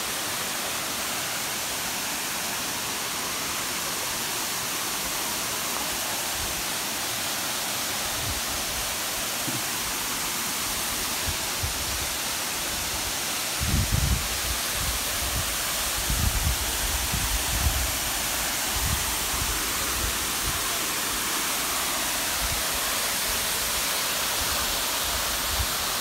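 Steady rushing roar of a jungle waterfall, with scattered low bumps about a third of the way in and through the middle.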